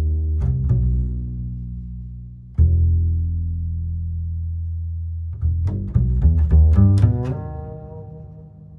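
Background music on low strings: two long held bass notes, then a quicker run of short plucked notes that fades away near the end.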